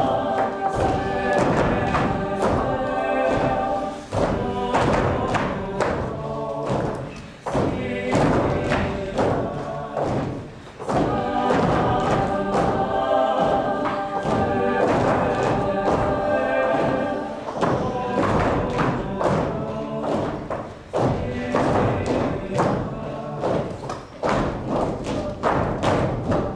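Experimental electronic music with sustained chords and repeated thuds, dipping briefly a few times before picking up again.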